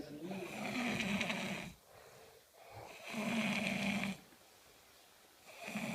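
A man snoring in deep sleep: rough, buzzing snores about every three seconds, two whole ones and a third beginning near the end, with quieter breaths between.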